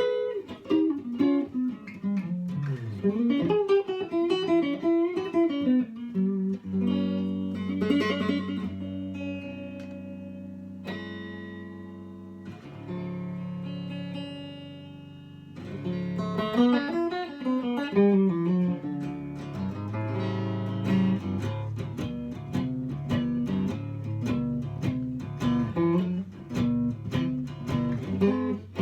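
Isana archtop guitar played in an improvised jam: quick single-note runs, then chords left ringing for several seconds, then picked lines and short, evenly repeated chord stabs from a little past halfway.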